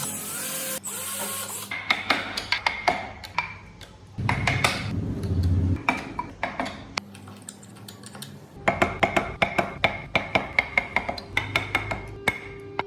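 Hand work on wood: a series of sharp taps and scrapes, with a brief low hum about four seconds in, then a run of quick, fairly regular taps in the second half.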